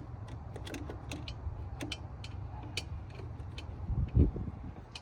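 Irregular light metallic clicks and taps of hand tools and intercooler parts being handled during the fitting, over a steady low hum, with a louder dull thump about four seconds in.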